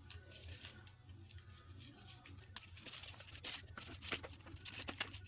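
A toothbrush scrubbing goo off the rollers of a dirt-bike chain: irregular short scratchy strokes, louder in the second half, over a low steady hum.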